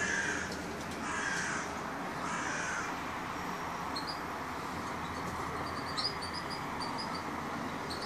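Yorkshire canary nestlings, about two weeks old, begging: three noisy calls about a second apart in the first three seconds, then a run of short, high, faint cheeps.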